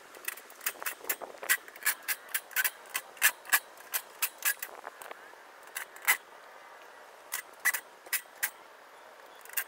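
Irregular run of sharp clicks and taps, about two or three a second, pausing about halfway and then coming again a few times.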